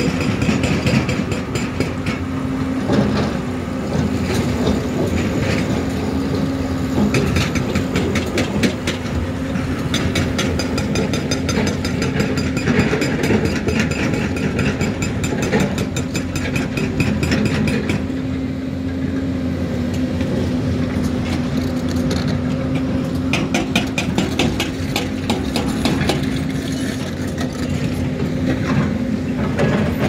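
Diesel engines of a Hyundai crawler excavator and a loaded dump truck running steadily, with frequent knocks and clatter over the engine sound.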